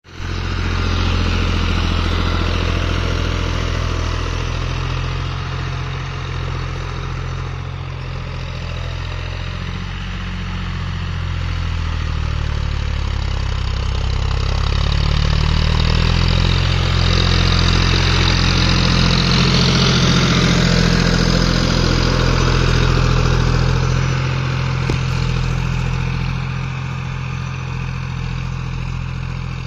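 Tractor engine running steadily under load while plowing. Its note dips and then climbs again partway through, and it grows quieter for a while before getting louder again.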